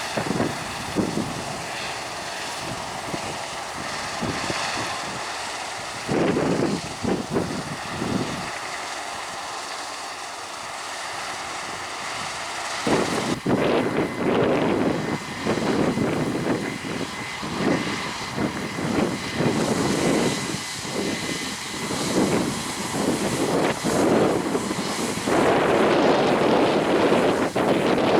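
Harvest machinery engine running with a steady drone, with wind gusting on the microphone, most heavily in the second half.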